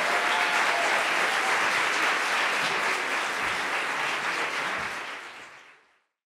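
Live audience applauding, fading out about five seconds in and gone just before the end.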